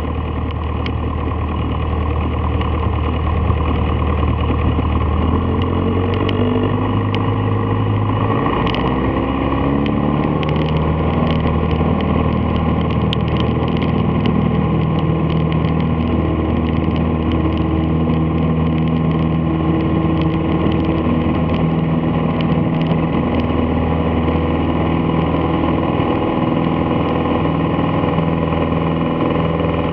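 Piper PA-28 Cherokee's piston engine and propeller at take-off power: the pitch rises over the first ten seconds or so as power comes up, then runs steady through the take-off roll. Scattered light clicks and knocks sound over it.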